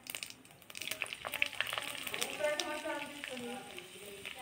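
Cumin seeds and a bay leaf frying in hot oil in an iron kadhai, sizzling, with a spoon clicking and scraping against the pan as it stirs. The sizzle grows louder about a second in. A faint voice is heard in the middle.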